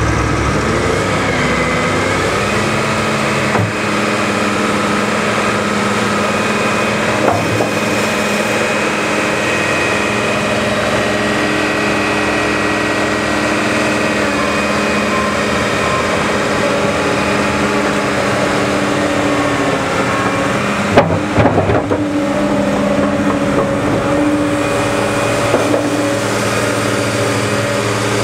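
Caterpillar 963B track loader's diesel engine running, picking up speed over the first few seconds and then holding steady. A few sharp metallic clanks come through it, the loudest cluster about three-quarters of the way in.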